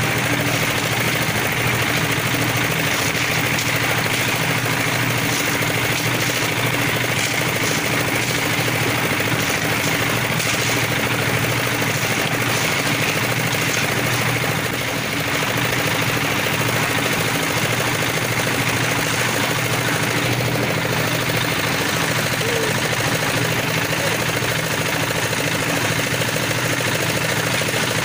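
A small engine running steadily at a constant speed, without pause.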